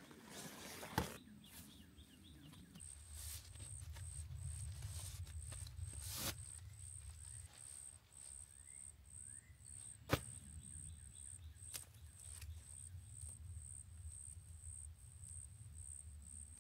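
Quiet outdoor ambience: a high, even pulsing about two to three times a second, with a few sharp clicks and a low rumble underneath.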